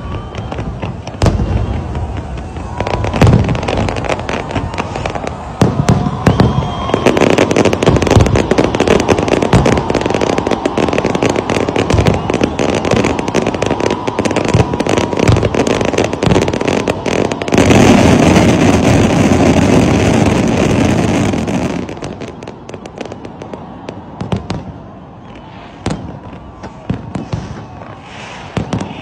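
Fireworks display: many shells bursting and crackling in rapid succession, building to a dense, continuous barrage, then thinning to scattered bangs and pops about three-quarters of the way through.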